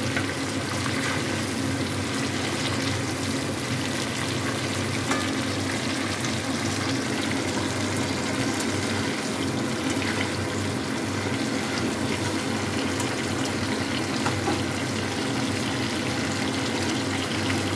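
Raw green mango pieces sizzling steadily as they fry in mustard oil in a steel kadai, stirred with a spatula.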